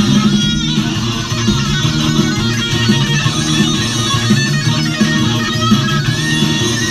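Stratocaster-style electric guitar played through a small amplifier: a continuous run of notes over a steady low part, with no break.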